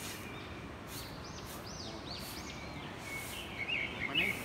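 Birds calling in the forest canopy: many short, arching whistled chirps, with a louder cluster of quick chirps near the end, over a steady outdoor hiss.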